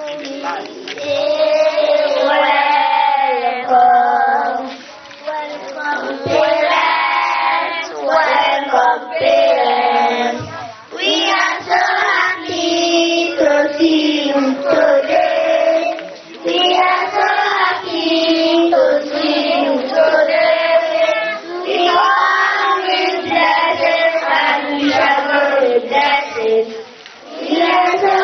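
A group of young children singing a song together, in phrases separated by brief pauses.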